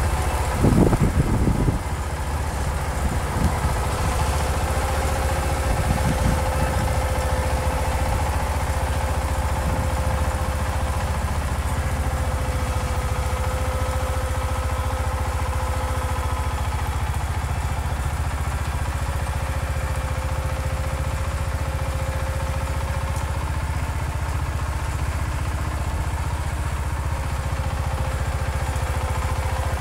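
Garden tractor engine running steadily, with a loud clatter of knocks about a second in and a few lighter knocks over the next several seconds.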